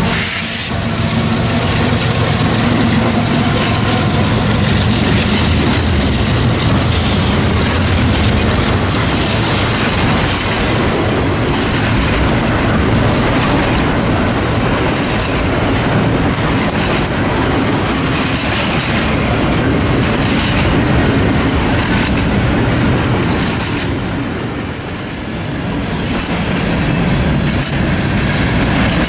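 Norfolk Southern freight train passing close by. The diesel locomotives' engines hum for the first few seconds, then double-stack container cars roll past with a steady clickety-clack of wheels over the rail joints.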